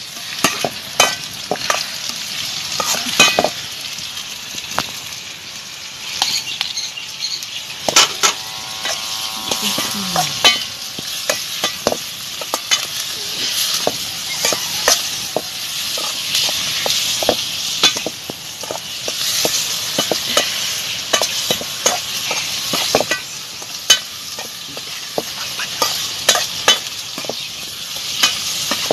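Chopped onions and tomatoes sizzling as they fry in a metal pan over a wood fire. A steel spoon stirs and scrapes against the pan, making frequent sharp clicks over a steady hiss.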